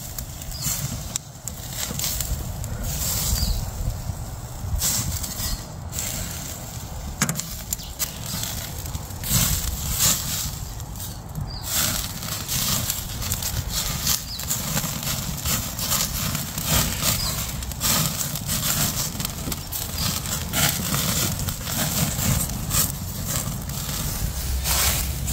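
Lamb seekh kebabs sizzling on a charcoal barbecue, with fat dripping onto the hot coals and crackling in many irregular pops, over a steady low rumble.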